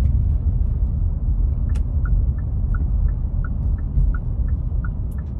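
Steady low rumble of a car's cabin while driving. About two seconds in, a regular ticking starts, about three ticks a second, fitting the turn-signal indicator ahead of a left turn.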